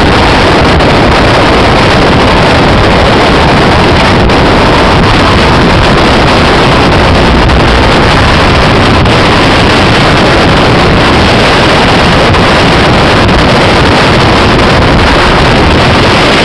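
Continental 4A032 four-cylinder air-cooled opposed engine running steadily at speed, driving a mini airboat's propeller. The propeller's blast buffets the microphone with wind noise that largely covers the engine.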